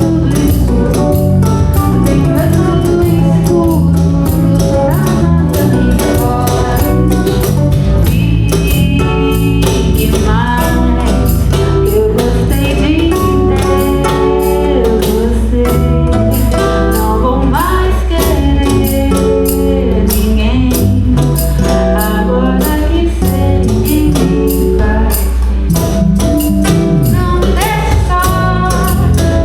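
A song played by a band: a singing voice and melody over a busy percussion beat, likely tambourine, and a steady bass line.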